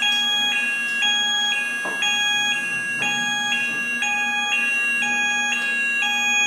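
Electronic fire alarm sounder going off as the fire curtains are activated: two high tones take turns, each about half a second long, over a steady high tone.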